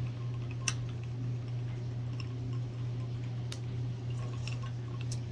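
A steady low hum with a few small, sharp clicks, the first and clearest under a second in, as china teacups are tapped together in a toast and then sipped from.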